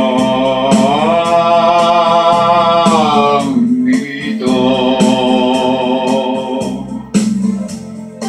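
Man singing long held notes, one sliding upward about a second in, over an electronic organ backing track with a steady beat.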